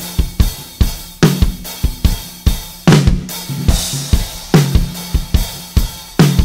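Drum kit groove around a 13 x 6.5 inch red heart (granadillo) stave snare drum tuned low, its backbeat hits about every second and a half each leaving a low ring. Bass drum and hi-hat fill the beats between, with a cymbal wash about halfway through.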